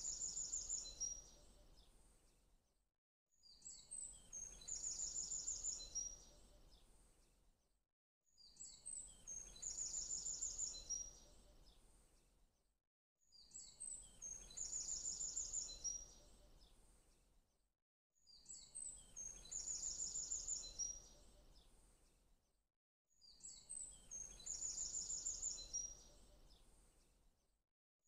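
A short songbird phrase, a few high chirps followed by a rapid trill, repeats identically about every five seconds with brief silences between. It is a looped birdsong track.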